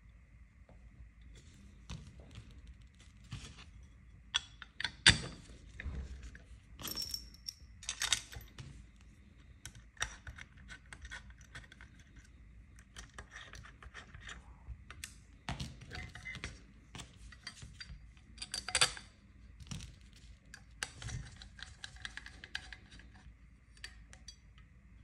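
Small metal parts and a screwdriver clicking, tapping and scraping as a crossbow's metal magazine is put together by hand: irregular light knocks and clinks, some with a brief metallic ring, the sharpest about five seconds in and again late on.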